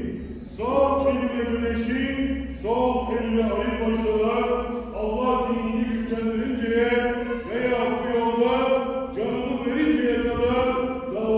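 A single man's voice chanting a melodic Islamic religious recitation, with long held notes that bend and slide, in phrases of a second or two.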